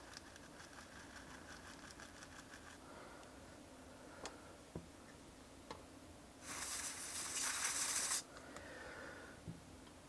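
Canned compressed air blasting through its red straw into a MacBook butterfly key's switch well, one hiss of under two seconds past the middle. Before it, faint scratching of a small brush on the keyboard and a few light clicks.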